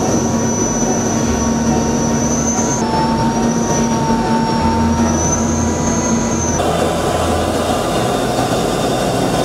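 KF-21 fighter's twin General Electric F414 turbofan engines at high thrust on takeoff and climb-out: a loud steady roar with a high whine over it, the whine shifting slightly in pitch at cuts about three and about six and a half seconds in.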